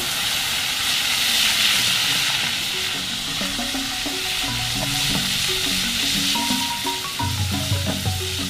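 Grasshoppers frying in hot oil with a loud, steady sizzle. The cook treats a noisy sizzle like this as the sign that the grasshoppers are not yet cooked. Background music comes in about three seconds in.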